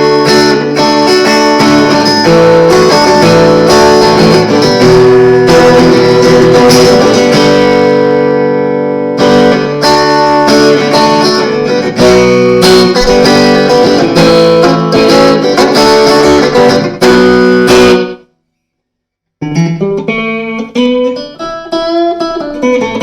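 Electric guitar played clean through a small practice amp, chords and picked notes ringing on the neck-and-middle pickup setting, a bit chimy. The playing stops about 18 seconds in, and after a second's pause a shorter phrase with bent notes follows.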